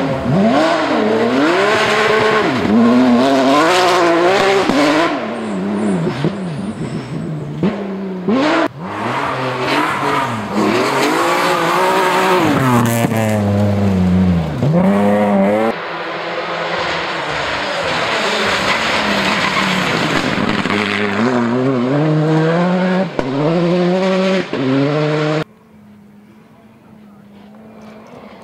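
Rally cars driven hard on a gravel stage, engines revving high and dropping again and again as they lift, brake and change gear. Near the end a fainter car engine grows slowly louder as it approaches.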